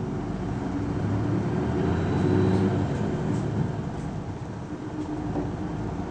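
Diesel engine of an Isuzu Erga city bus (PKG-LV234L2) running under way, heard from inside the cabin as a low drone that grows louder to about two and a half seconds in, then eases off.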